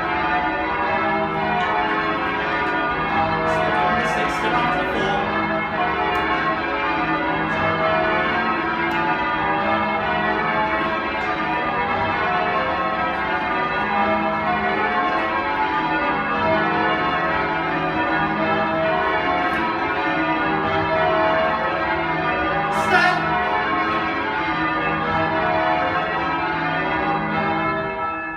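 Change ringing on Magdalen College's ring of ten church bells, with a 17 cwt tenor in E: the bells strike in continuous, evenly paced overlapping rounds of pealing tones, with one brief knock late on. Right at the end the ringing stops and the last strokes hum away.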